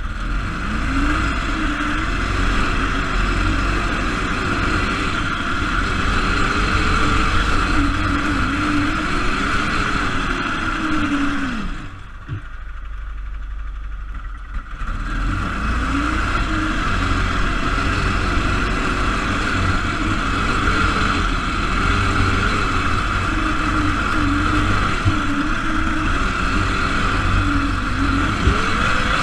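Baja SAE off-road car's Briggs & Stratton single-cylinder engine revving up and down under changing throttle, with a steady high whine alongside. About twelve seconds in, the engine drops back to a low running note for about three seconds, then revs up again.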